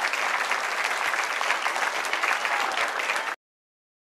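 Audience applauding, many hands clapping at a steady level, cutting off suddenly a little over three seconds in.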